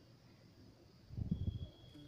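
Near silence, broken a little after a second in by a brief run of faint, low, muffled thumps.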